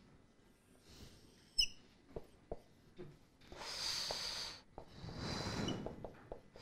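Whiteboard marker squeaking and scraping across the board as lines and letters are drawn, in two longer strokes. Before them come a few light taps of the marker tip.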